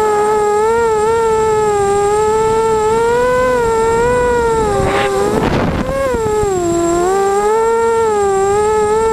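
Emax Nighthawk 250 racing quadcopter's brushless motors and props whining, the pitch swelling and dipping as the throttle changes through the turns. About five seconds in a short rush of noise comes in as the pitch drops, then the steady whine returns.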